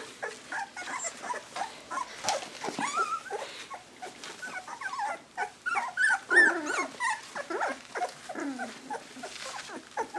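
A litter of young puppies playing, giving many overlapping squeaky little growls and whimpers, busiest about six seconds in.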